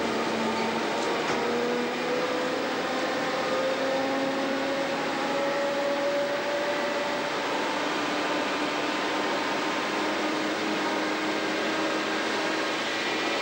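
Brill Model 75 railcar running along the track, heard from inside its cab: a steady drone of engine and running noise, with a faint tone that slowly rises in pitch over the first several seconds.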